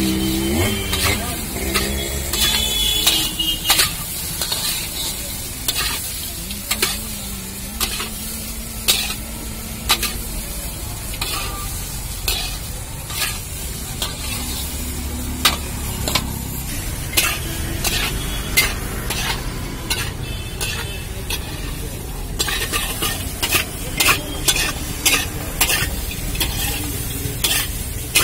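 Flat metal spatula scraping and knocking against a large iron kadai as sago pearls are stir-fried and tossed, over a steady sizzle of frying. The strokes come irregularly, several a second, and more densely near the end.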